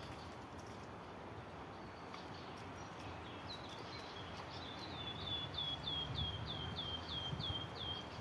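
A bird calling a rapid series of thin, high notes, each sliding down in pitch, about three a second for several seconds.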